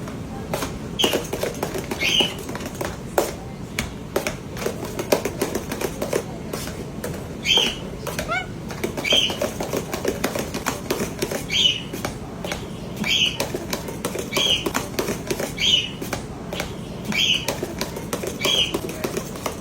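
Potatoes being mashed in a pot: rapid clicks and knocks of the masher against the pot. From about a third of the way in, short high squeaks repeat at a steady pace, about one every second.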